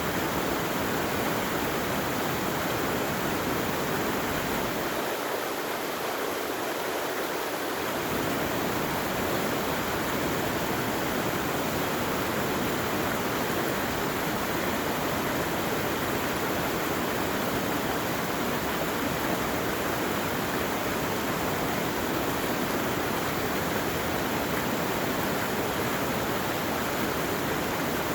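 Steady rushing of flowing water, like a stream or waterfall. The low rumble underneath drops away for a few seconds about five seconds in.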